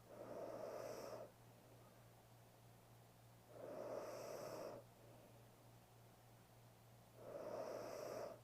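A sleeping woman's heavy, slow breathing: three noisy breaths about three and a half seconds apart, over a faint steady hum.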